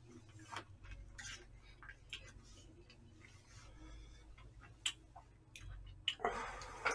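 Quiet eating sounds: a metal spoon clicking and scraping in plastic takeout containers of stir-fried rice, a handful of light ticks spread out, then a louder short rustling burst near the end.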